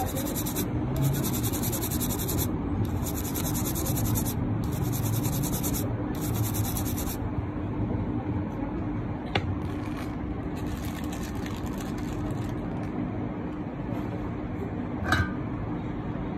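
Small brush scrubbing the bare charging-port pads of a phone circuit board, clearing leftover solder and flux after the port was desoldered. There are about five long scratchy strokes, then one more a few seconds later, over a steady low hum, with two short clicks.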